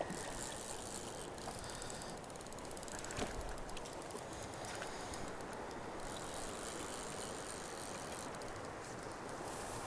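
Steady rush of river current, with spells of fast ticking from a fly reel's clicker as a hooked brown trout pulls line. One short knock sounds about three seconds in.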